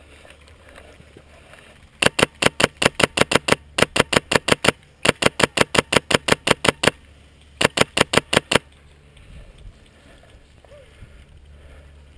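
PolarStar HPA-powered airsoft rifle firing close by in four rapid strings of sharp shots, about six or seven a second, starting about two seconds in and ending near two-thirds through.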